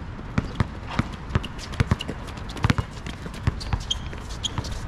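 Basketball being dribbled and bounced on an outdoor asphalt court, a string of irregular sharp knocks mixed with the footsteps of players running.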